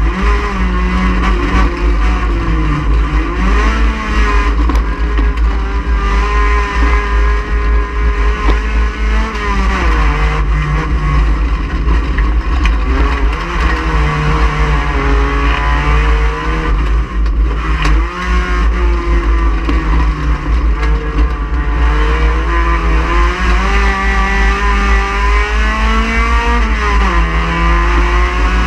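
Race car engine running hard on track, its pitch repeatedly climbing and then dropping sharply through gear changes and braking, over a heavy low rumble.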